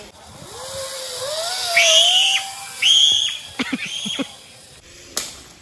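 Zip line trolley running down its steel cable, a whine that rises in pitch as it picks up speed, with a child's high squeals and shouts over it.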